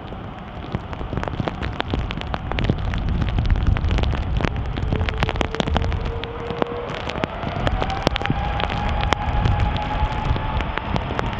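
Airbus A330 jet engines spooling up over a low rumble, with a whine that starts about four seconds in and climbs steadily in pitch. Heavy rain gives many sharp ticks throughout.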